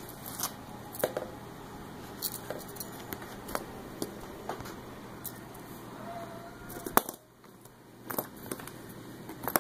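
Scattered light clicks and taps of a pencil being batted by a kitten's paws and knocked against a wooden table and a fabric laptop bag, with one sharper knock about seven seconds in.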